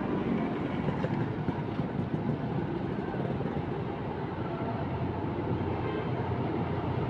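Intercity coach's diesel engine running as the bus pulls slowly toward the microphone, a steady low rumble whose engine note grows stronger near the end as it comes closer.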